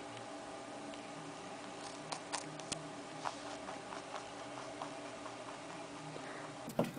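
Young rabbit nibbling a carrot slice: faint, crisp clicks and crunches, several close together about two seconds in, then sparser, over a steady low hum.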